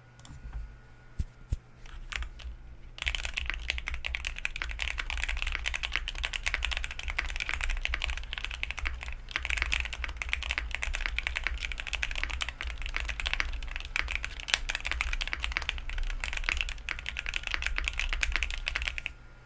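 Bakeneko65 mechanical keyboard being typed on fast and continuously. It has lubed Akko CS Jelly Black linear switches, double-shot ABS keycaps and foam dampening, and the keys give a dense stream of clacks. A few separate keystrokes come first, and steady rapid typing starts about three seconds in.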